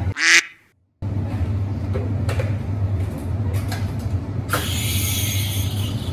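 Steady low hum of café equipment with a few light clicks, after a brief loud whoosh and a moment of dead silence near the start. About four and a half seconds in, the steam wand of the Synesso MVP Hydra espresso machine opens with a sudden loud hiss that keeps going, as for steaming milk.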